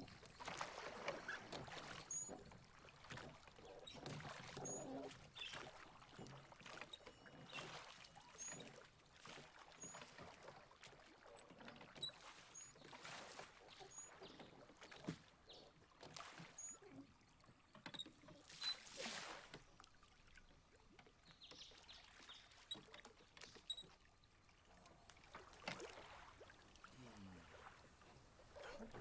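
Quiet strokes of a wooden oar through calm lake water, a soft splash and swirl every second or two as the rowboat is rowed. Faint short bird chirps come in over the top.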